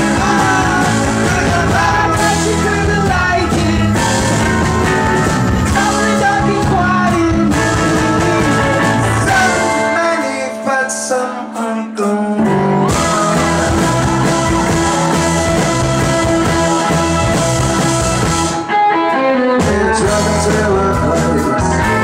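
Rock band playing live: electric guitar, bass guitar and drums with a male singing voice. About ten seconds in the low end drops out for about two seconds, then the full band comes back in.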